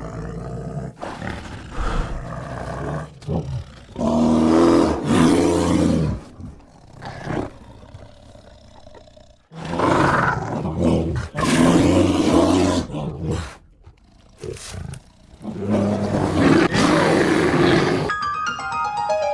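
Bear roar sound effects: several long, loud roars with lower growling between them. Background music returns near the end.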